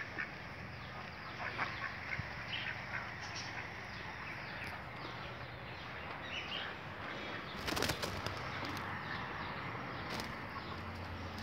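Doves flapping their wings as they shift about on a roost in a tree, with a louder burst of wingbeats about eight seconds in. Faint small-bird chirps sound in the background.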